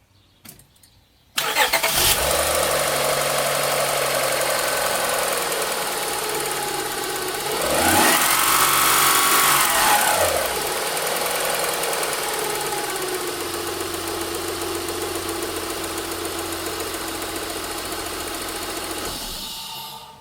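Honda Pilot's 3.5-litre V6 engine catching about a second and a half in and idling. About halfway through it is revved once, rising and falling over a couple of seconds, then settles back to a steady idle.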